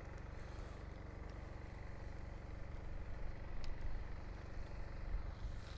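Steady low outdoor rumble, with a few faint clicks from the angler's spinning reel as the line is wound in after the cast; the sharpest click comes about three and a half seconds in.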